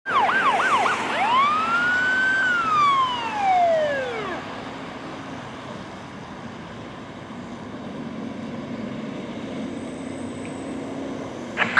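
Fire engine's Federal Signal PA200 electronic siren: a few fast yelp sweeps, then one long wail that rises, holds and slides down, dying away about four seconds in. After that the truck's engine and road noise go on as a steady low rumble, and the siren sweeps up again right at the end.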